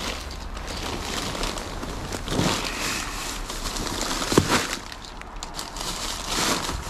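Plastic trash bags rustling and crinkling as hands rummage through them, with a few louder crackles.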